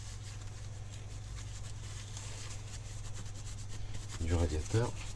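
A wipe rubbing old thermal paste off a PC heatsink's copper contact plate. A short vocal sound breaks in about four seconds in.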